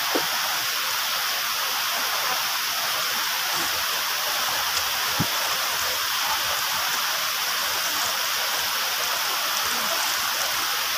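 Steady rushing of water, an even hiss that does not let up, with one or two faint clicks.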